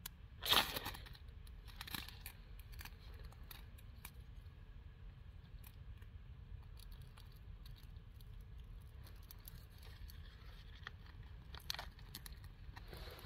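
Birch bark being torn and crinkled by hand as fire tinder, with one loud tear about half a second in, a smaller one around two seconds, and small scrapes and crackles after.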